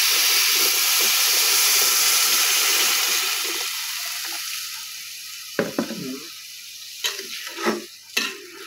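Hot water poured into a metal pot of rice, lentils and vegetables frying in oil, with a loud sizzle that dies down after about three seconds. A spoon then stirs the khichuri, knocking against the side of the pot several times.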